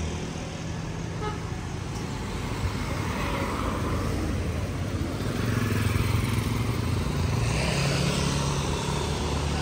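Road traffic: cars and motorbikes running along a narrow road, with a steady engine hum.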